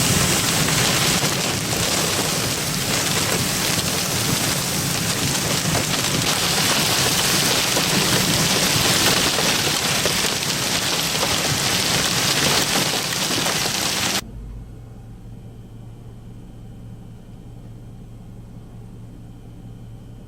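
Hail and heavy rain pounding on a vehicle, a loud dense din of countless impacts. About fourteen seconds in it cuts off abruptly, giving way to a much quieter, steady vehicle hum.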